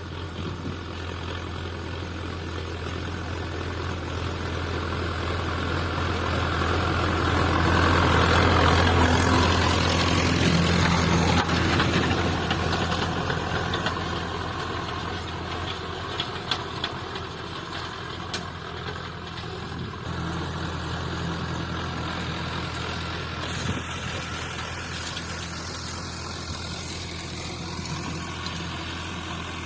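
Sonalika DI 750 III RX Sikander tractor's diesel engine running steadily while ploughing. It grows louder to a peak about a third of the way through and then eases off again, as the tractor passes close by.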